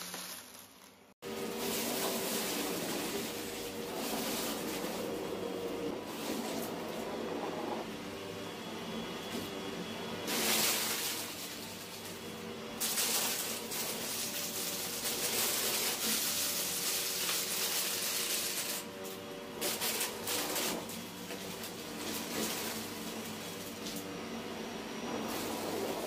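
Hoover Breeze Evo bagless upright vacuum cleaner running, a steady motor hum with louder, hissier surges now and then as it works across the floor. About a second in the sound dips and breaks off briefly, then picks up again.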